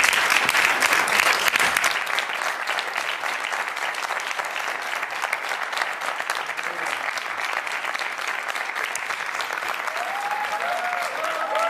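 Audience applauding: a dense patter of clapping, loudest in the first two seconds and then steady, with voices starting up near the end.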